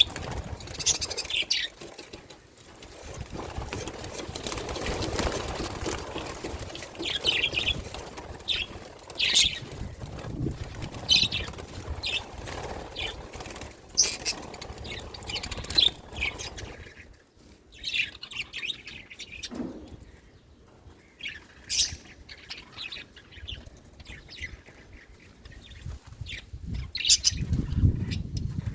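Budgerigars chirping in short, scattered high calls, over bursts of rustling noise from the birds moving and fluttering.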